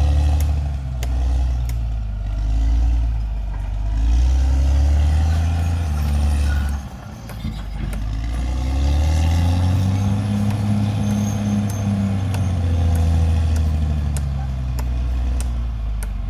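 Caterpillar D6R XL bulldozer's diesel engine working under load, its pitch rising and falling as it pushes, with a brief drop about seven seconds in. Scattered sharp clanks and clicks sound over the engine.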